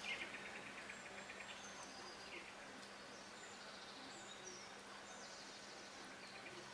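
Faint birdsong: a quick trill at the start, then scattered short chirps and twitters, over a faint steady hum.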